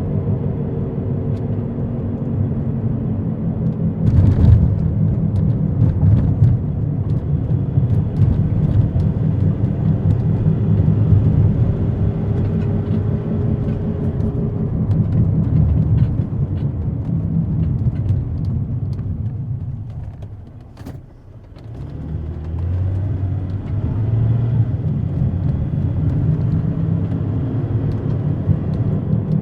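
Car driving on the road with a bad wheel bearing: a steady low rumbling drone, the whomping noise of a worn bearing, with a pitched engine note that rises and falls. The noise dies away briefly about 20 seconds in, then builds again.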